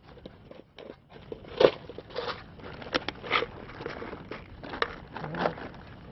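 German Shepherd puppies chewing and tugging at a plastic water bottle, the plastic crinkling and crunching in irregular sharp crackles, a few of them loud.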